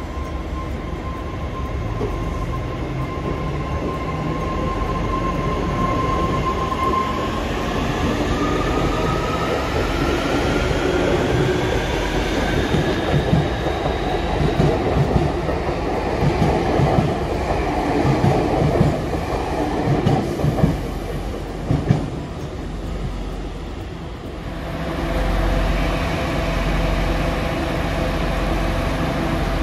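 Electric train running on the line: a motor whine rises in pitch over several seconds, then wheels clatter and knock over rail joints, and a steady hum sets in near the end.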